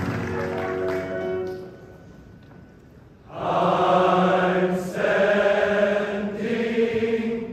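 Large men's chorus singing held chords: a chord dies away, a brief hush, then the choir comes back in loud on long sustained notes that move to new chords twice.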